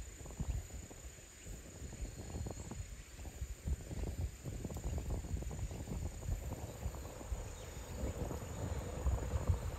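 A steady, high insect drone over a low rumble that grows toward the end as a JR Kyushu YC-1 series diesel-hybrid train approaches from a distance.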